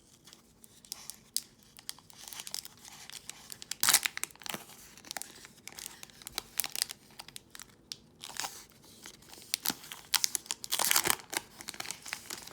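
Foil wrapper of a Pokémon trading card booster pack being torn open and crinkled by hand, in irregular crackles with louder rips about 4 seconds in and again near the end.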